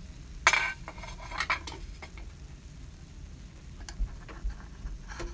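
A thin metal skewer clinking and scraping against a metal bandros pancake mold as the cooked cakes are prised out of their cups. There is a sharp clatter about half a second in, a quick run of clicks soon after, and a few scattered clicks near the end.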